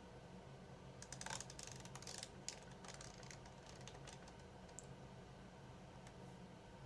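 Faint small clicks of fingers working the controls of an Akai MPC Live, a quick run of them about a second in and a few scattered ones after, over a low steady hum.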